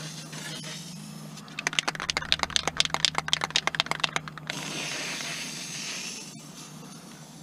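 Aerosol spray-paint can being shaken, its mixing ball rattling in quick clicks about nine times a second for roughly three seconds, then a short hiss of paint spraying from the nozzle.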